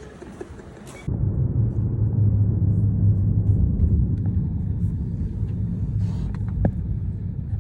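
A car driving, with a steady low rumble of engine and road noise that starts abruptly about a second in.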